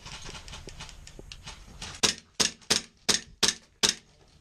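An airsoft gun firing six quick semi-automatic shots, each a sharp crack a little under half a second apart, starting about halfway through.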